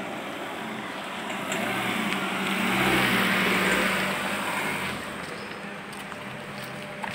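A car passing close by at low speed on a dirt road. Its engine and tyre noise swell to a peak about three seconds in and fade by about five seconds.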